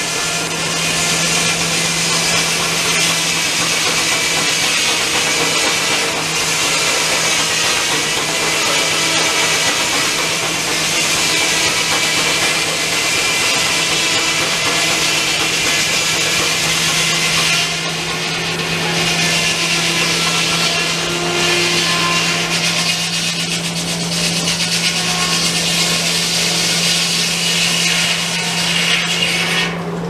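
Circular sawmill blade, powered by a Keck-Gonnerman steam traction engine, cutting lengthwise through a log: a loud, continuous rasping cut over a steady hum from the spinning blade and drive.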